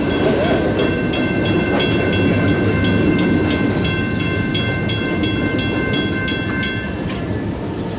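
Railroad grade-crossing warning bell ringing in rapid, evenly spaced strokes over a steady low noise. The bell stops about seven seconds in as the crossing clears, just before the gates lift.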